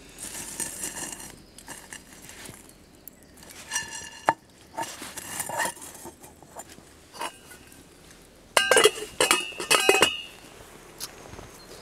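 Metal cookware being handled over a campfire: a pan and pot knocking and clinking, with a cluster of loud clanks that ring a second or two before the end.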